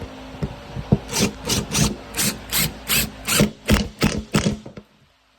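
Power drill driving screws into scrap wood: a run of short grinding strokes, about three a second, that stops a little before the end.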